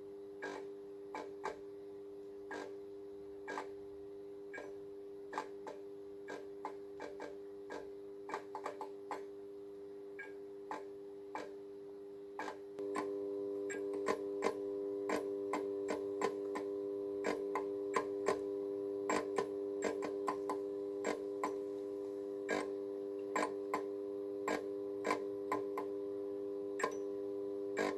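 Fluorescent fitting's magnetic ballast humming steadily while the glow starter clicks irregularly, often several times a second. It keeps trying, and failing, to strike an end-of-life Philips TLD 18W T8 tube that only glows at its ends. The hum and clicks get louder about halfway through.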